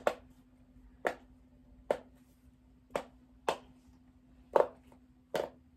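Silicone bubbles of a Fat Brain Dimple Digit fidget toy being pushed through one at a time, popping with sharp clicks about once a second, seven in all.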